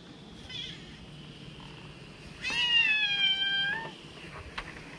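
A house cat meowing while it waits to be fed: a brief faint call near the start, then one long, slightly falling meow of over a second midway through.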